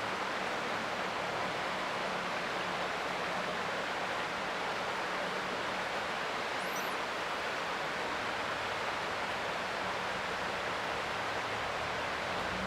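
Creek water flowing in a steady, even rush, with a faint low hum underneath and one brief high chirp about seven seconds in.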